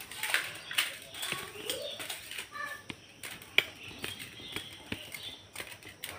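Hands mixing and mashing rice on steel plates, with scattered light clicks and taps of fingers and utensils on the steel plates and tumblers, the sharpest about three and a half seconds in. A few faint chirps sound near the middle.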